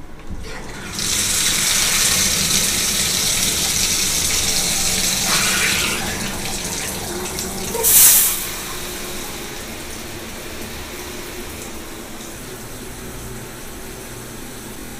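Bathtub faucet turned on, water running hard into the tub about a second in. The flow drops partway through, with one brief louder gush, then keeps running more quietly.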